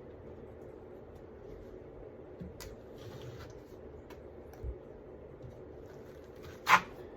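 Drywall knife working fast-setting joint compound over a taped drywall patch: faint, intermittent scrapes and ticks over a low steady hum, with one sharp knock near the end.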